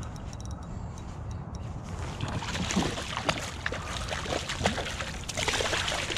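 Hooked coho salmon thrashing and splashing at the surface beside a kayak, starting about two seconds in and growing busier, with a landing net dipped into the water near the end.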